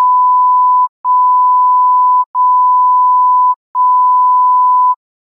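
Steady 1 kHz bleep tone in four long beeps of about a second and a quarter each, with short breaks between them, stopping just before the end.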